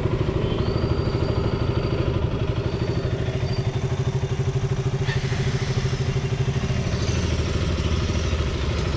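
KTM Duke 200's single-cylinder four-stroke engine idling steadily with an even, rapid pulse, held at idle while its exhaust is sampled for an emissions (PUC) test.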